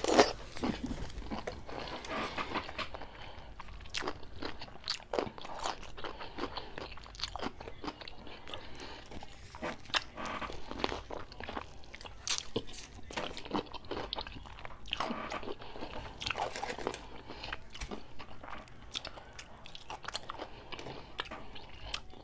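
A whole pickle being bitten into and chewed, with repeated crunches and crackles of its flesh close to the microphone.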